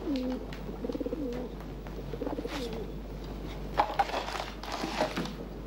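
Pigeons cooing in low, wavering coos, with a few brief clicks or knocks about four to five seconds in.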